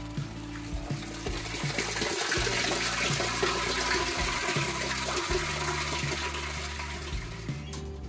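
Overflow water from the stock tank pouring down into a shallow well casing, a steady splashing rush. It builds about a second in and stops abruptly just before the end.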